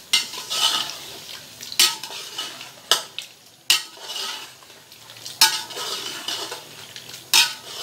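Metal spoon stirring mutton, tomatoes and yogurt in a metal pot, scraping and striking the pot's side in several sharp clinks at uneven intervals, over a light sizzle of frying. The stirring is kept up constantly so the yogurt does not curdle.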